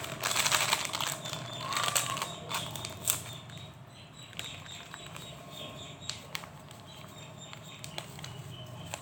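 Plastic packaging crinkling and rustling close to the microphone for about three seconds, then quieter scattered clicks and rustles.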